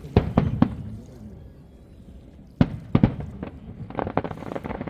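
Fireworks going off: three sharp bangs in quick succession just after the start, two or three more around three seconds in, then a quick run of crackling near the end.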